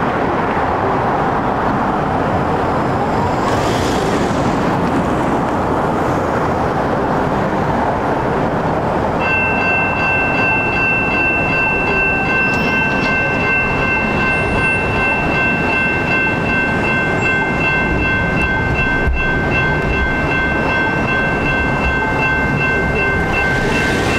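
Steady road and traffic noise. About nine seconds in, a railroad crossing's electronic bell (General Signals Type 2) starts ringing and keeps ringing, a bright repeating tone at several pitches, as the crossing signals activate.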